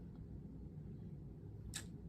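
A faint low room hum in a pause between spoken sentences, with one short soft hiss near the end.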